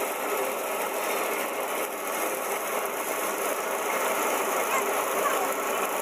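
Paddy thresher running steadily, its drum whirring while rice sheaves are fed in to strip the grain from the straw.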